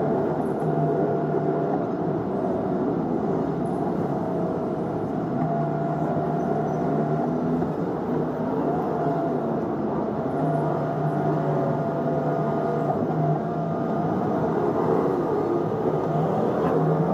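Steady in-cabin hum of a car creeping in slow stop-and-go traffic, engine and road noise heard inside the car, with no sudden events.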